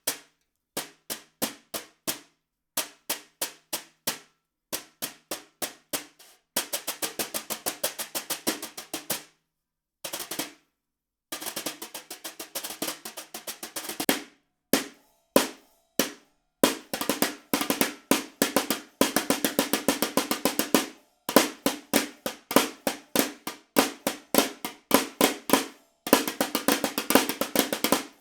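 Pearl Short Fuse 10x4.5 snare drum being played: short groups of about four strokes with pauses between them, then a fast roll, then longer stretches of busy, continuous playing in the second half.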